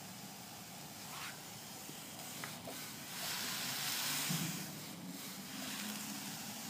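Steam iron hissing on a damp towel, with a louder rush of steam lasting about a second and a half near the middle. A few light clicks from the iron being handled.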